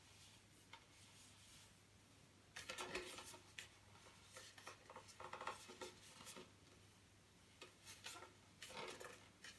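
Faint handling sounds from the resin-wetted carbon fibre cloth wrap: scattered light rubbing and small clicks as loose, frayed strands are tidied off the wrapped pole section. The sounds start a couple of seconds in, with little before that.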